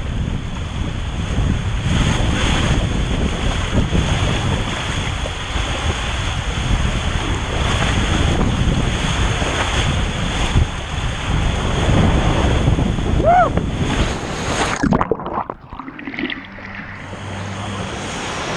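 Rushing water and wind buffeting a small action camera as it rides feet-first down a fast fiberglass water slide, a loud, steady rush with heavy rumble. About 15 s in comes the splashdown into the pool: the rush cuts off suddenly and turns into a duller, muffled water noise as the camera goes into the water.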